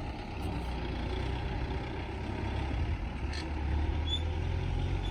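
Farm tractor engine running steadily, a continuous low hum.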